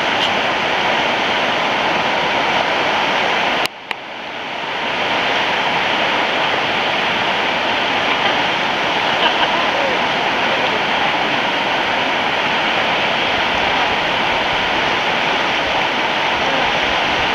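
River rapids rushing steadily in a loud, even wash of water. About four seconds in, the sound cuts out abruptly and swells back over a second.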